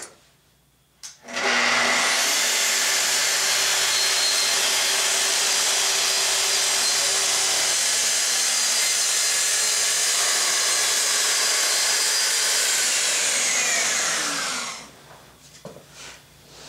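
Festool TS55 REQ plunge track saw starting up about a second in, running steadily through one long trim cut along a sheet of 6 mm Baltic birch plywood, then spinning down with a falling whine near the end.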